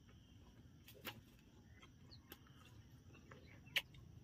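Quiet rural background: a faint steady insect drone with a few small bird chirps. Over it, a handful of soft mouth clicks from chewing sticky rice, the loudest near the end.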